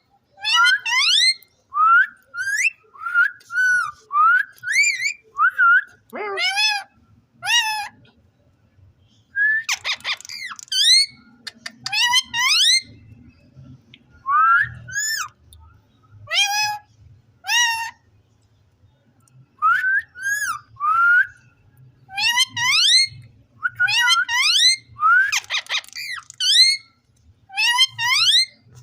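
Ring-necked parakeet giving a long run of short whistles and chirps, most of them rising in pitch, in quick groups of one to three with short pauses between.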